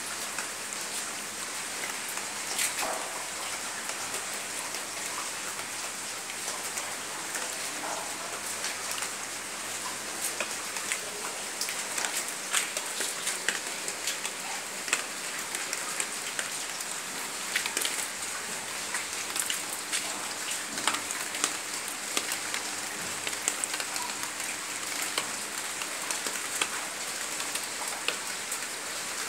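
Heavy rain falling: a steady hiss with many separate drop hits, which come more often in the second half.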